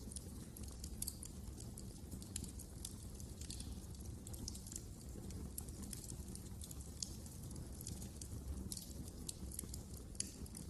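Wood fire crackling in a fireplace: frequent small sharp pops and snaps over a steady low rumble.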